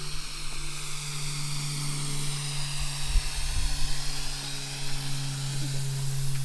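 Air hissing steadily out of an off-road tire's valve as the tire is aired down for the trail, over a steady low hum.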